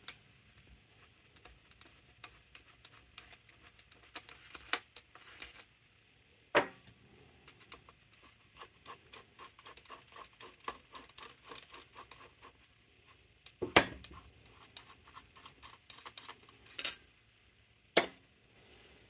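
Small clicks and rattles of carburetor parts being handled as the top of a Carter Thermoquad carburetor is worked off, with four louder knocks spread through.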